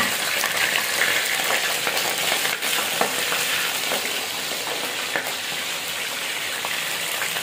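Raw chicken pieces sizzling and crackling steadily in hot oil in an aluminium karahi, stirred with a wooden spoon.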